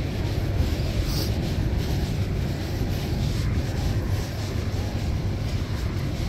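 A steady low rumble with a lighter hiss above it, level throughout, with no distinct events.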